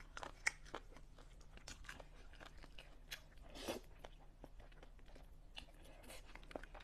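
Quiet close-up eating sounds: a person chewing crisp fried chicken with small crunching clicks, and one short slurp of noodles about three and a half seconds in.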